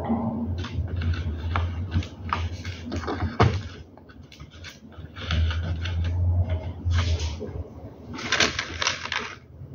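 Irregular plastic clicks, taps and scraping as a blind headrail and its cord and small parts are handled on a workbench, with one sharp click about three and a half seconds in and a cluster of scrapes near the end. A low hum underneath stops and starts.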